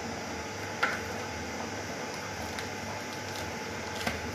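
Steady background hum, with two short sharp knocks, one about a second in and one near the end: a kitchen knife striking a cutting board as a block of paneer is cut.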